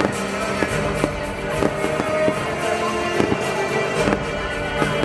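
Aerial fireworks shells bursting, a sharp bang every second or so, over loud music playing throughout.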